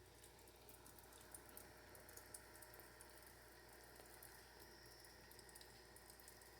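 Near silence: faint background hiss and a low steady hum, with scattered faint high ticks.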